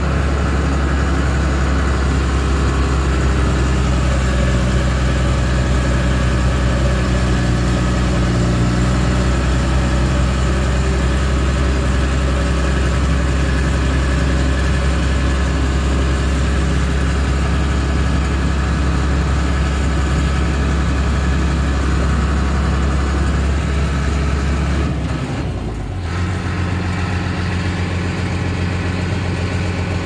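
Small crawler bulldozer's diesel engine running steadily. About 25 seconds in, the engine note dips briefly and settles at a different pitch.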